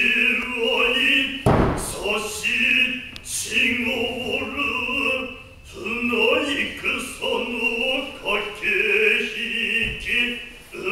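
A male voice chanting Noh utai in long, wavering held notes, with a heavy foot stamp on the wooden Noh stage about a second and a half in and another near the end.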